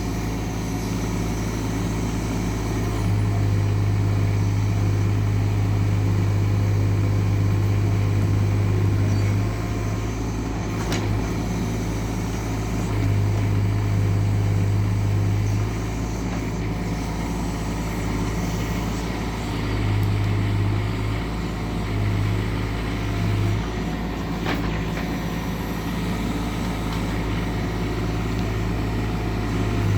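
Doosan DX19 mini excavator's diesel engine running steadily with a deep hum that swells louder for a few seconds at a time, as under digging load. Two faint clicks come partway through.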